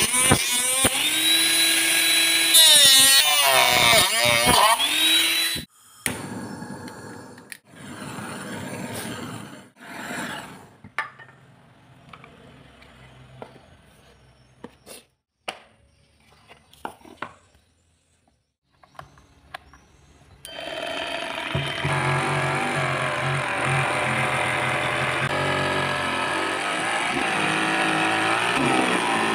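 Small handheld mini grinder, a DC motor with a cutting disc, whining as it cuts through a PVC pipe, its pitch dipping and recovering as the disc bites. It cuts off about six seconds in, giving way to quieter scraping and a few sharp ticks; a steadier, fairly loud hum starts about twenty seconds in.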